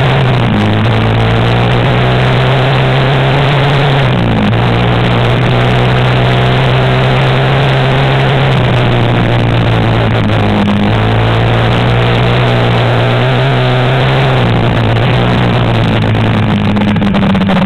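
Yamaha Raptor quad bike's single-cylinder four-stroke engine running under way on a rough dirt track. Its pitch drops and picks up again a few times with throttle and gear changes, over a steady rushing noise.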